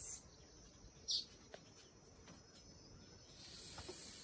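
A small bird giving a few short, high, falling chirps, the loudest about a second in, over faint background hiss.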